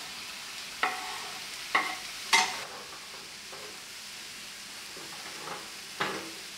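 Shrimp, chili and onion sizzling in a frying pan as shredded kohlrabi is scraped in from a cutting board and stirred with a wooden spatula. A few sharp knocks of utensils against the pan cut through the steady sizzle, about one, two and two and a half seconds in (the loudest) and again about six seconds in.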